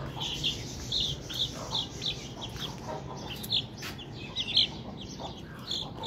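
Chicken chicks peeping in short, high peeps, about two or three a second, with the loudest peep about four and a half seconds in.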